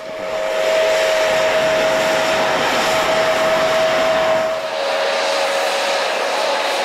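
Small narrow-gauge steam locomotive venting a big jet of steam sideways: a loud steady hiss with a steady high tone running through it. About four and a half seconds in it becomes a little quieter and thinner.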